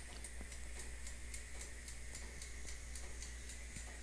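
Mechanical timer of a Suggar electric countertop oven ticking at about four ticks a second while the oven bakes, over a faint low hum.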